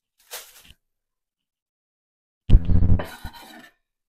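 A brief rustle of a plastic bag, then about two and a half seconds in a loud knock and clatter with some scraping, as a kitchen knife is handled at a wooden cutting board.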